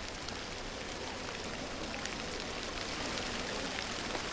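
Steady rain-like hiss of water spraying onto a diving pool's surface from the pool's surface sprayers, with a few faint ticks.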